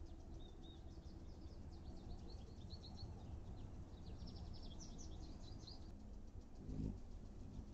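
Birds chirping in quick series of short, high notes, stopping about six seconds in, over a steady low background noise; a dull thump near the end.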